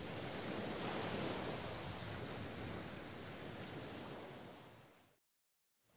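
Small sea waves breaking and washing up on a sandy shore, a steady surf hiss. Near the end it fades out into a moment of complete silence.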